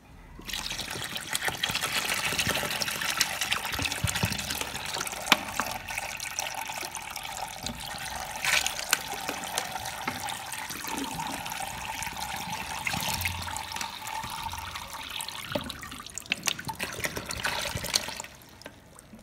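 Water falling in several thin streams from a plastic container into a shallow tray of soil and gravel, splashing and trickling steadily, as simulated heavy rain flooding a model landscape. It starts just after the beginning and stops near the end.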